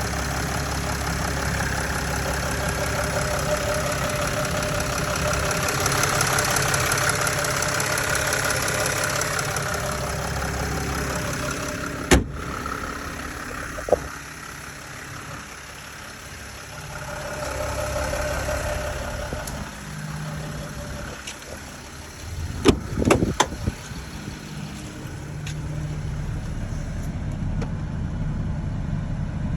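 Mercedes Vito 120 CDI's V6 diesel engine running steadily, swelling briefly about midway. Sharp clicks come about twelve and fourteen seconds in, and a quick cluster of knocks about twenty-three seconds in.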